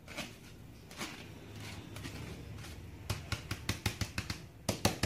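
A metal spoon scraping parboiled rice out of a plastic colander into an aluminium pot. A soft rustle at first, then from about three seconds in a quick run of sharp clicks and taps as the spoon knocks against the colander.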